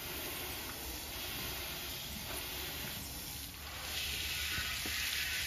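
Water spraying from a hose spray nozzle onto a car's fender and wheel, a steady hiss that grows louder about four seconds in.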